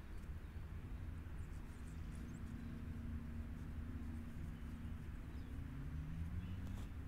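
Outdoor background: a steady low rumble with a faint distant engine hum that rises in pitch near the end, and a few faint high chirps.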